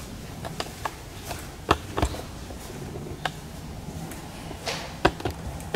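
Irregular footsteps and light knocks on a hard floor, a sharp tap every half second or so, over a low steady room hum.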